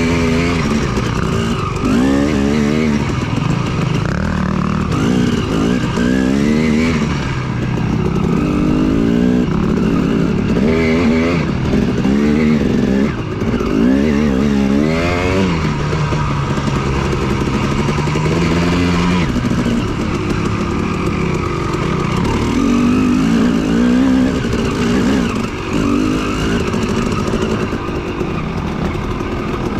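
Yamaha WR450F dirt bike's single-cylinder four-stroke engine revving up and down over and over as it works through tight trail switchbacks, with a steadier stretch about halfway through.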